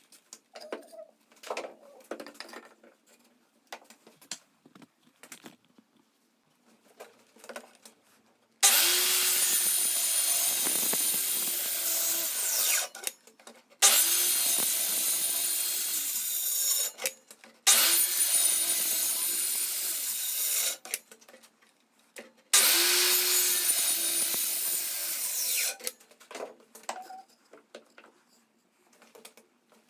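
An electric power tool working wood, run four times for three to four seconds each with short pauses, a steady motor hum under a loud hiss. Light handling clicks and knocks come before and after the runs.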